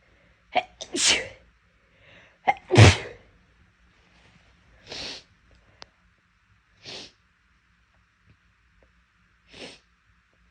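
A woman sneezing loudly twice in quick succession, each sneeze a short sharp catch followed by a longer burst, the second the louder. Three much softer breathy sounds follow, about two seconds apart.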